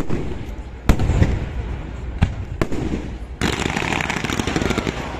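Aerial fireworks bursting: four sharp bangs in the first three seconds, then from a little past halfway a dense crackling of many small pops.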